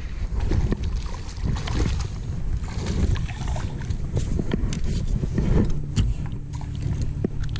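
Wind rumbling on the camera microphone while a baitcasting reel is cranked to bring in a small bass, with scattered sharp clicks. A steady low hum sets in near the end.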